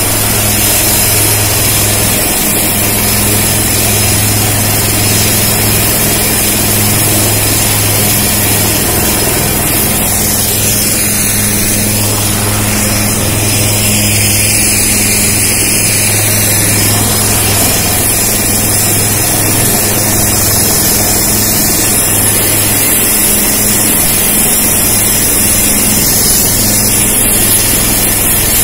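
An HAL Dhruv military helicopter running on the ground with its rotors turning: a loud, steady turbine and rotor noise with a constant low hum.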